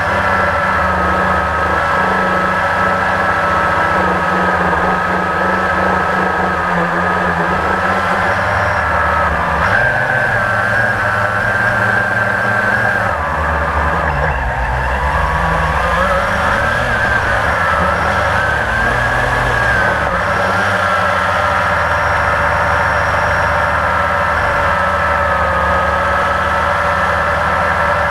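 Blade 350 QX quadcopter's four brushless motors and propellers whining in flight, heard from the onboard camera. The pitch holds steady, wavers up and down through the middle as the throttle changes, then settles steady again.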